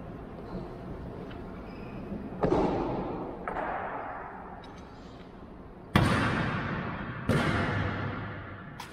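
Honor-guard drill strikes, boots and rifles hitting a marble floor: four sharp ones, each ringing on in a long echo through a large stone hall. The loudest comes about six seconds in, and a few faint clicks fall between them.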